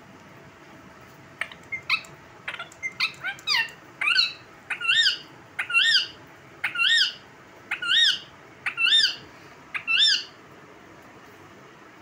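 Indian ringneck parakeet squawking: a few short chirps and clicks, then a run of harsh rising-and-falling calls about once a second, each with a short click just before it.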